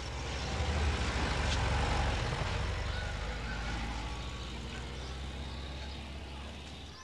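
A Volkswagen van's engine running as it passes close by and drives away. It is loudest a second or two in, then fades as the van pulls off down the street.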